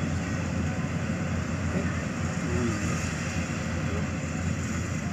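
Several Landforce combine harvesters running steadily as they drive in a line across a field, their engines and machinery making a continuous low mechanical noise.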